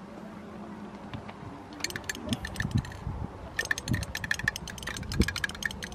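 Aerosol spray paint can giving dense, rapid clicking and rattling in two spells, a short one about two seconds in and a longer one from about three and a half seconds.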